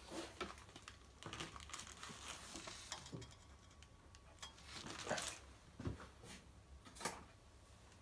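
Hand tools and small metal parts being handled on a workbench: scattered clicks, clinks and rustling, with a few sharper knocks about five, six and seven seconds in.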